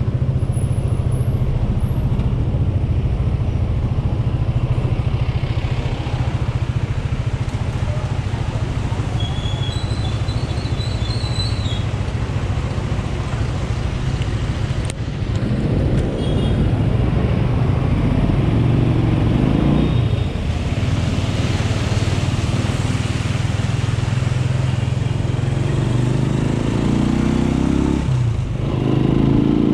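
AKT NKD 125 single-cylinder four-stroke motorcycle engine running as the bike is ridden: a low steady hum at slow speed in traffic, then accelerating with rising pitch a little past halfway and again near the end.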